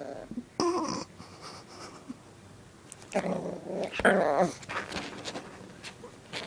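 Puppy growling angrily in several short bursts.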